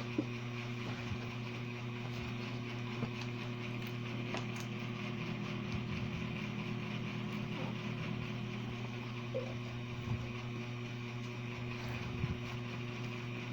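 A steady mechanical hum, with a few faint short clicks and taps over it.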